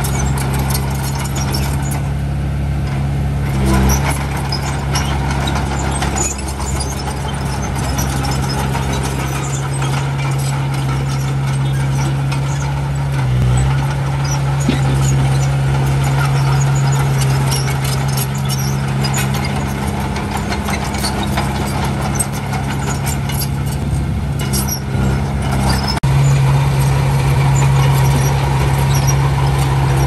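Diesel engines of heavy earthmoving machinery running steadily under work, with scattered metallic clicks and squeaks; the engine note steps up and gets louder near the end.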